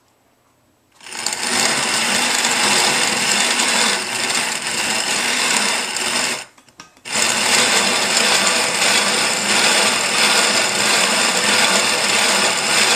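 Grain Maker hand-cranked grain mill grinding grain into coarse flour: the burrs crunch the grain steadily as the crank turns. There are two long runs with a short pause about six seconds in.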